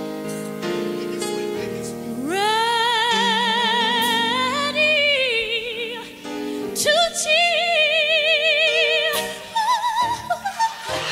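Gospel song recording: a female lead voice sings long, held notes with wide vibrato, sliding up into the first one about two seconds in, over sustained chords.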